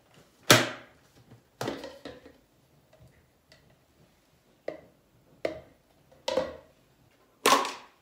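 Hard plastic parts of a cordless stick vacuum clacking and knocking against each other and a ceramic sink as the dust bin is unlatched, pulled off and set down: about seven sharp knocks at uneven intervals, the loudest about half a second in and near the end.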